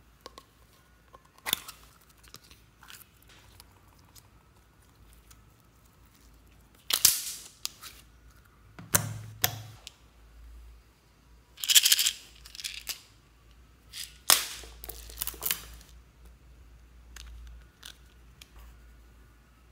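Close handling sounds of slime play: a plastic slime tub being handled and opened and glitter slime pulled out into a tray. They come as scattered sharp clicks and crackles, loudest in clusters about 7, 12 and 15 seconds in.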